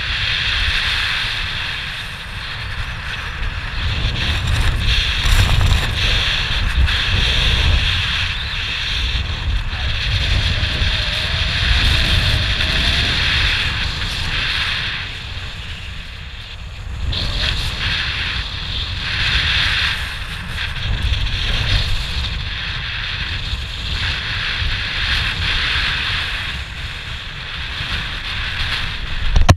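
Wind rushing over an action camera's microphone as a paraglider glides down to land, a buffeting rumble and hiss that swells and eases with the airflow.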